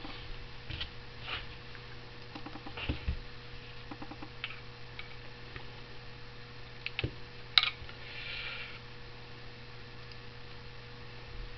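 Light metallic clicks and taps as a small brass gear pump is handled on a workbench. The sharpest click comes about seven and a half seconds in, followed by a brief scraping rustle, all over a faint steady hum.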